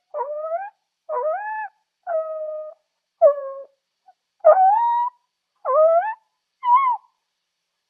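Zebra calling: a run of seven short barking calls with gaps between them. Several calls rise in pitch and others hold level.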